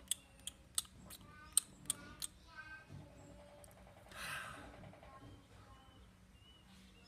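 Exaggerated eating and mouth-noise sound effects: a quick run of sharp clicks and crunches, then squeaky chirps, a buzzing rattle, a short breathy burst about four seconds in, and faint high squeaks.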